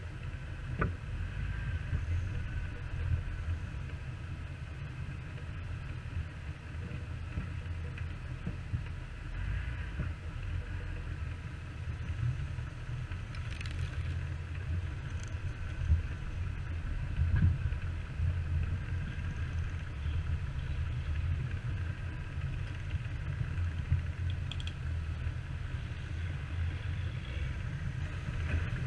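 Jeep running on an off-road trail: a steady low engine and road rumble with a few scattered knocks and rattles.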